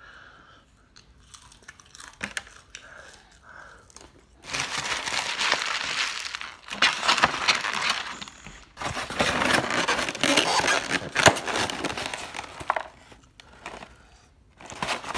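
Paper food wrappers being crumpled and crammed into a foam takeout clamshell. Three long stretches of loud crinkling and crackling start about four seconds in, after quieter handling sounds.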